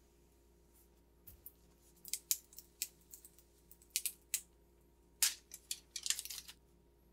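Clear plastic film being peeled off a carbon fiber door sill and handled: a run of irregular sharp crinkling crackles, loudest in a dense cluster near the end.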